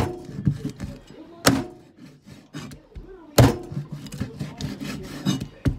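Meat cleaver cutting raw chicken on a bamboo cutting board: a few sharp wooden chops about two seconds apart, with lighter knocks and scraping of the blade between them.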